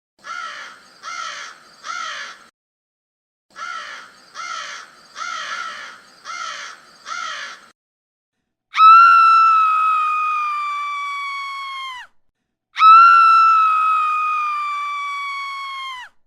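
Horror sound effect: three and then five harsh crow-like caws, followed by two long high-pitched screams, each held about three seconds, sagging slightly in pitch and cutting off abruptly.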